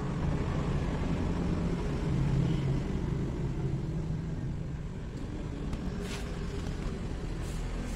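Steady low rumble, with a faint knock about six seconds in.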